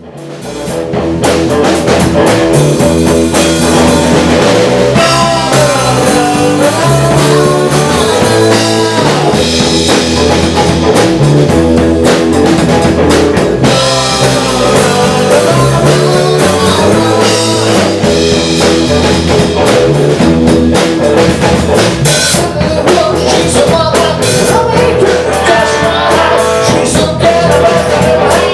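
Rock music with a drum kit, fading in over the first second or two and then playing at a steady, loud level.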